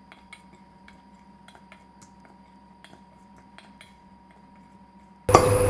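A spoon clinking faintly and irregularly against a stainless steel bowl while dry flour and spices are stirred together, over a faint steady hum.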